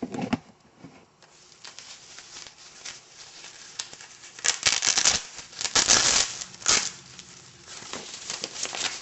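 Velcro foot strap being ripped off a wheelchair: three rasping tears about halfway through, with lighter rustling and clicks of the strap being handled around them.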